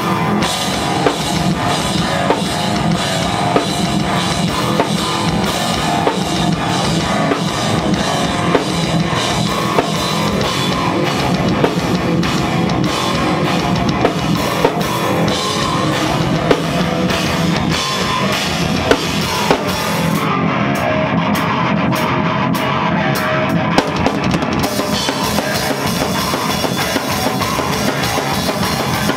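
A rock band rehearsing: an extended-range electric guitar through a tube amp and cabinet, with a drum kit played hard under it. About twenty seconds in, the cymbals drop out for a few seconds of choppy hits, then the full kit comes back.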